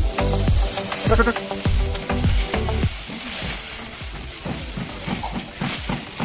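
Dry straw rustling and crackling as it is grabbed and pulled from a heap by hand.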